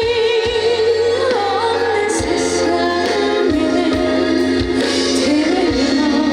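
A woman singing a trot song with wavering vibrato over an amplified band backing with a drum beat, through a PA system.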